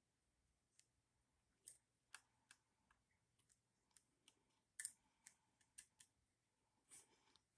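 Faint, irregular small metallic clicks and taps of hand tools on an outboard motor's ignition breaker points while the point gap is being set.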